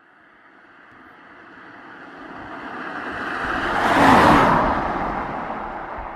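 A car driving past: its engine and tyre noise grow steadily louder from silence, peak about four seconds in as it goes by, then fade away.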